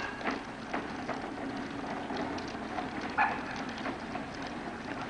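Hard plastic wheels of children's ride-on toys rolling over a concrete sidewalk: a steady gritty rumble scattered with small clicks and rattles.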